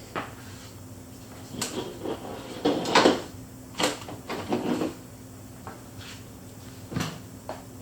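Several scattered clicks and light knocks of handling as magnifying glasses are hung on a spring clamp at the edge of a work table, over a faint steady hum.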